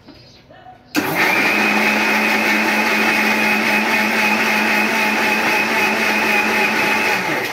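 Electric mixer grinder running. Its motor spins up suddenly about a second in, runs at a steady, loud whir, and winds down near the end.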